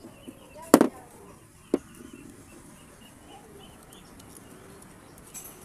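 Two sharp knocks about a second apart, the first the louder, from small parts and an oil bottle being handled on a plastic tabletop, over faint bird calls in the background.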